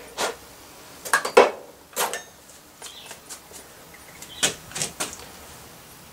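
Metal parts and tools being handled on a workbench: a run of sharp knocks and clicks at irregular intervals, loudest about a second and a half in.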